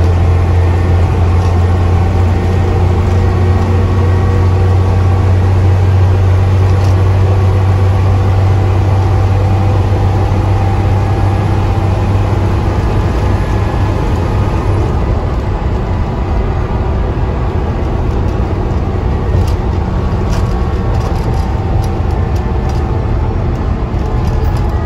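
Dennis Trident double-decker bus heard from inside the saloon, its diesel engine pulling with a steady deep drone over road noise. About halfway through the drone fades as the engine eases off. Light clicks and rattles come near the end.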